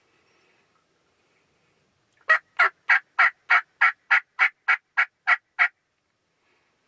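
Turkey yelping: a steady, loud series of about twelve evenly spaced notes, roughly three or four a second, starting a couple of seconds in and stopping abruptly.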